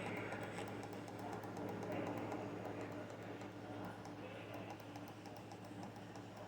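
Faint clicking of typing on a computer keyboard over a steady low electrical hum.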